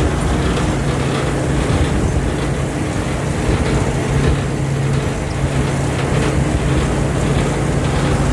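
Vehicle engine running steadily while driving along a road, its even hum mixed with heavy road and wind noise.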